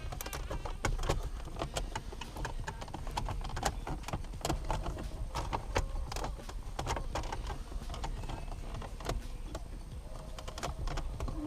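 Irregular clicks and taps of hands fitting the shift knob and its trim parts back together, over a low steady rumble.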